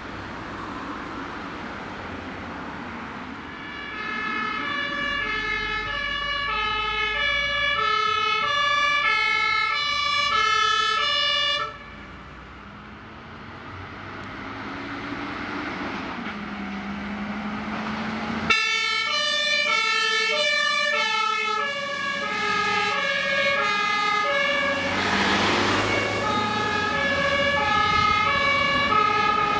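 Two-tone sirens (Martinshorn) of German fire engines on emergency runs, high and low tones alternating about twice a second. The first siren grows louder and cuts off abruptly about twelve seconds in, leaving truck engine noise that rises in pitch. A second two-tone siren starts abruptly about six seconds later.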